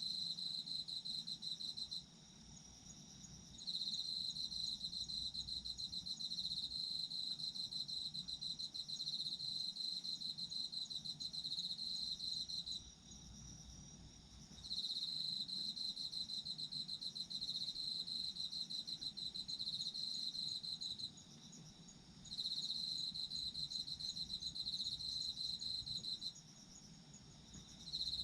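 Autumn crickets trilling at a high, steady pitch in long trills of several seconds, each broken off by a pause of about two seconds, four times over. A fainter, higher-pitched insect chirps alongside.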